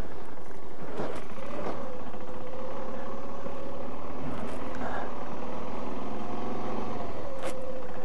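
Motorcycle engine running steadily at low speed under road and wind noise, with a few brief knocks.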